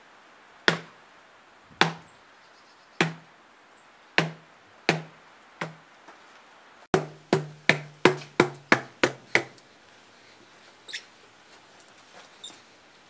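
A plastic drainpipe packed with wet wood-chip pulp knocked repeatedly against the ground, each hollow knock ringing briefly low. About six knocks come a second or so apart, then a quicker run of about ten at roughly four a second, stopping about ten seconds in.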